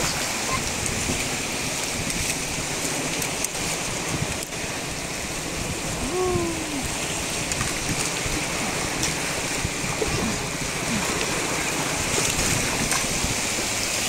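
Shallow sea waves washing in over a sandy beach: a steady rush of water.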